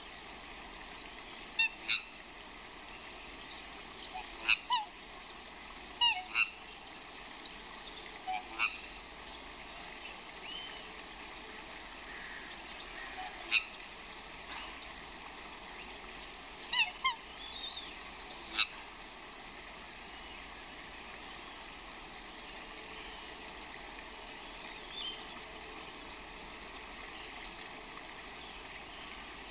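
Swans calling: short, sharp calls, often two in quick succession, over a steady background hiss. The calls come thickly for the first two-thirds, then stop, with a few fainter ones near the end.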